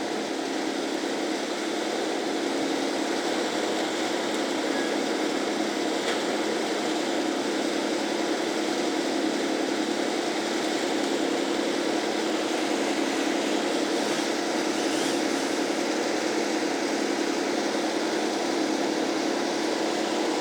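Wood chipper's engine running at a steady drone, getting a little louder about two seconds in.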